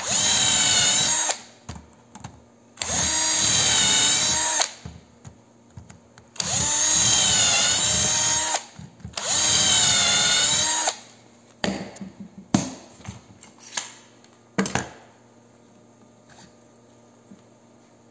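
Bosch cordless drill boring four shelf-pin holes in a row through a template's guide bushing into a laminated board, each run lasting about two seconds, its pitch dipping as the bit cuts and rising again before it stops. After the fourth hole come a few light knocks and clicks.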